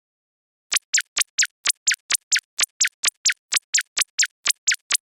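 A rapid, even series of short falling chirps, about four a second, starting about three-quarters of a second in: a cartoon sound effect.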